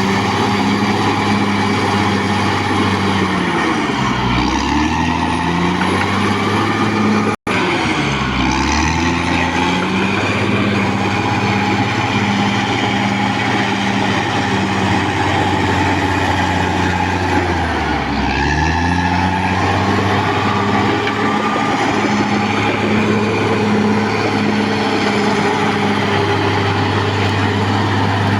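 Caterpillar D6R XL bulldozer's diesel engine running steadily, its engine speed dropping and picking back up three times, with a momentary cut in the sound about seven seconds in.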